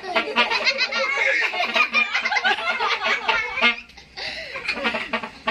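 A group of children and adults laughing and calling out together, with a brief lull about four seconds in.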